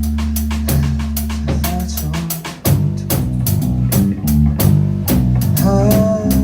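Rock band playing an instrumental passage with no vocals: drum kit keeping a steady beat, held bass guitar notes and electric guitar lines. The band drops out briefly about two and a half seconds in and comes back on a hard drum hit.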